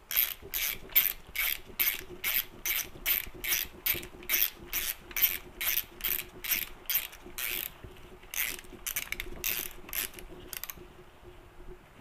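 Ratchet wrench being worked on a crankcase bolt, about three quick clicking strokes a second in an even rhythm, stopping about eleven seconds in.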